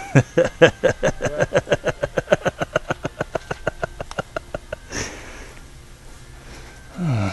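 A person laughing in a long run of short breathy bursts that start quick and slow down and fade over about four seconds. A falling voiced sigh follows near the end.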